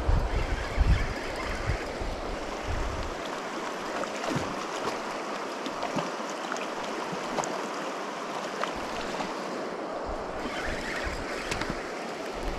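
Small river running steadily over its bed, a continuous rushing of water, with a few low thumps of wind or handling on the microphone in the first three seconds.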